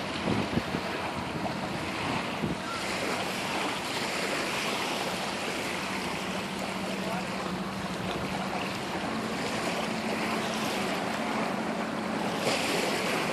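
Wind noise on the microphone over small waves lapping a sandy shoreline, swelling every few seconds, with a faint steady low hum underneath.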